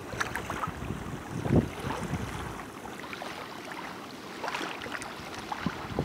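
Small waves lapping and breaking on a sandy shore, with wind rumbling on the microphone. A louder low thump comes about a second and a half in, and the low wind rumble drops away about halfway through.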